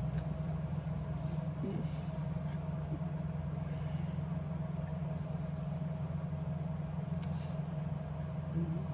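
A steady low machine hum with a faint steady tone above it, unchanging throughout, with a few faint clicks.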